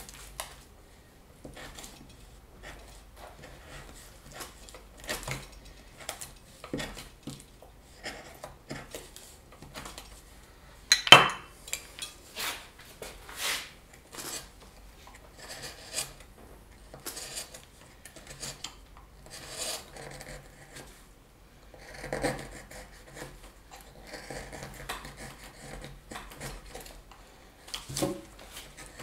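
Wood being cut with hand carving tools: irregular short slicing and scraping strokes, with one sharp, louder cut about 11 seconds in and a denser run of scraping near the end.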